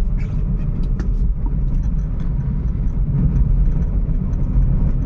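Volkswagen car being driven, with a steady low engine and road rumble. The engine is running without its earlier cylinder 1 misfire, now that the ignition coil has been replaced.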